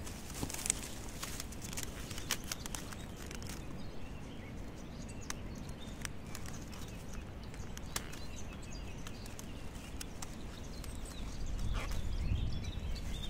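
Plastic mesh tree guard and twine being handled and tied by hand: irregular light rustling and small clicks. A low rumble rises near the end.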